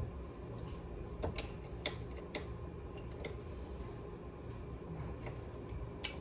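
Scattered small clicks and taps of a PS5's screws and parts being handled during an SSD install, over a steady low hum, with the sharpest click near the end.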